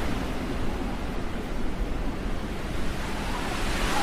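Steady rushing wind noise buffeting the microphone, with a heavy low rumble.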